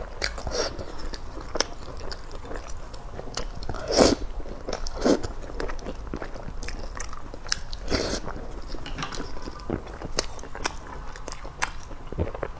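Close-miked eating: irregular wet chewing, biting and lip smacks as a person eats soft noodles in sauce, with a couple of louder smacks about four and five seconds in.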